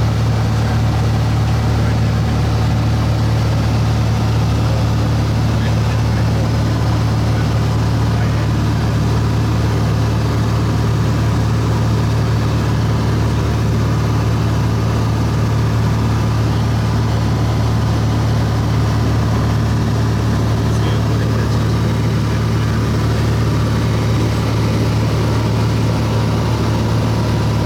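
Light aircraft's engine and propeller running at a steady cruise: a constant drone with a strong low hum that does not change.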